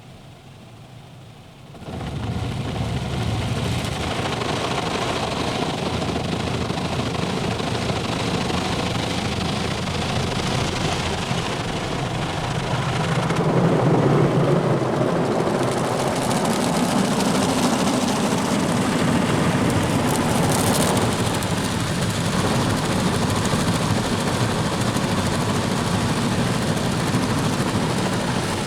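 WashTec SoftCare2 Pro rollover car wash gantry coming back over the car, heard from inside the cabin: a steady rush of machinery and washing that starts about two seconds in and grows louder about halfway through.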